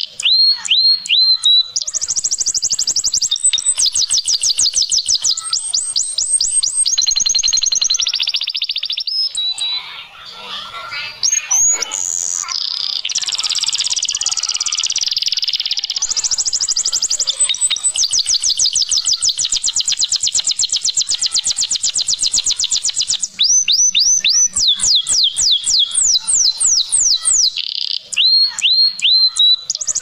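Domestic canary singing a long, continuous song of fast trills and rapidly repeated high, downward-sweeping notes. The song goes briefly quieter about ten seconds in.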